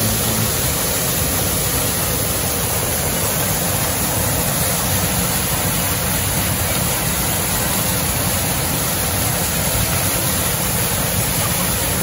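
Waterfall pouring down onto rocks, heard from right beside the falling water: a loud, steady rush of water.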